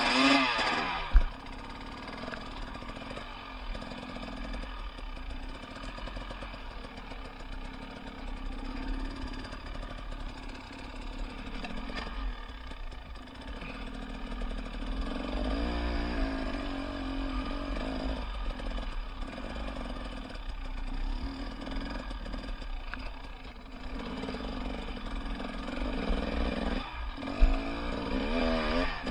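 Enduro motorcycle engine running mostly at low revs, its pitch rising and falling as the bike picks its way over rough ground. The revs rise near the start and again near the end, and there are two sharp thumps, one about a second in and one near the end.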